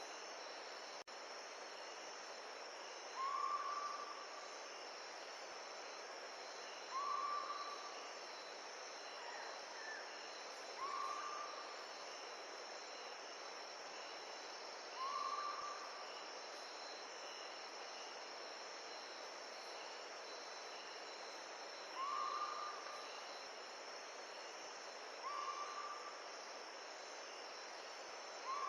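Carpathian mountain stream rushing steadily. Over it, a short animal call near the same pitch repeats seven times, about every three to four seconds; each call is a brief note that bends up and levels off, and is the loudest thing each time.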